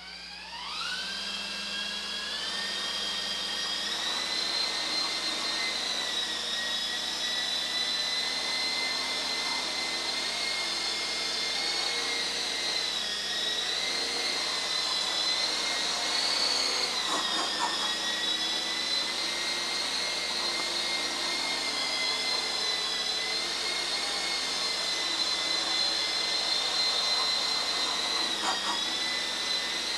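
Small electric coaxial RC helicopter spooling up: the motors' whine rises in pitch over the first second or two. It then holds a steady high whine while hovering and scooting, the pitch wavering slightly as the throttle and cyclic are worked.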